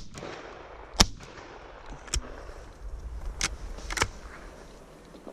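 Shotgun shots: a loud shot right at the start and a second one about a second later, then three fainter shots from further off.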